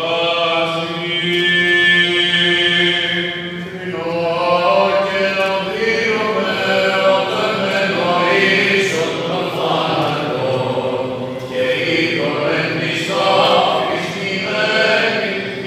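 Byzantine chant of the Greek Orthodox funeral service, sung by male voices: a slow melody of long held notes over a steady drone.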